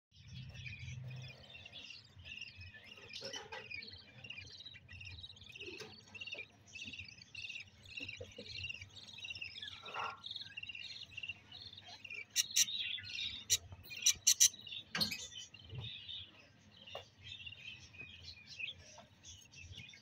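Budgerigars chattering in a dense, continuous stream of short chirps. A few sharp taps or clicks stand out, loudest, about twelve to fifteen seconds in.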